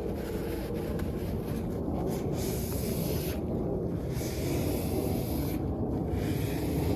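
CNC machine running, a steady low rumbling noise with a high hiss that cuts in and out several times.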